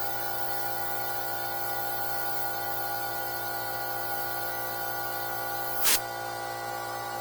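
Compressed air hissing steadily from a boost leak tester pressurising the turbocharged engine's intake and escaping through a leak, which is later traced to the turbo elbow. There is one sharp click about six seconds in.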